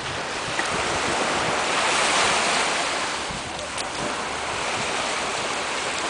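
Surf washing onto a sandy beach: a steady rush that swells about two seconds in and then eases, with wind buffeting the microphone.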